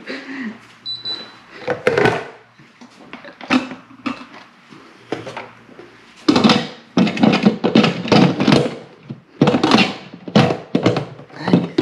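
Electric pressure cooker lid being put on and closed: scattered knocks and clunks of the lid, with louder music coming in about six seconds in.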